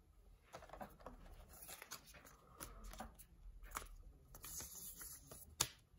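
Faint rustling and light clicks of Pokémon trading cards and plastic card sleeves being handled, with a few sharper ticks.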